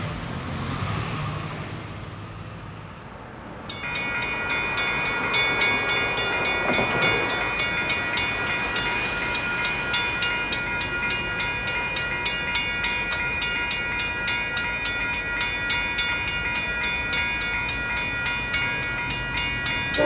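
A train's diesel engine drone fades over the first few seconds. About four seconds in, a railroad warning bell starts ringing steadily at about three strokes a second and keeps going.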